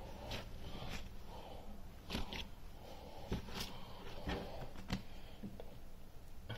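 Bread dough being kneaded by hand on a tabletop: faint soft squishing and pressing, with a few light irregular knocks against the table.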